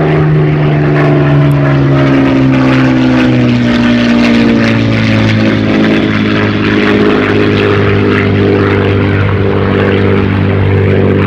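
Merlin-engined WWII warbird making a low fly-by, its propeller engine drone loud and steady. The pitch falls over the first few seconds as it passes, then holds lower as it draws away.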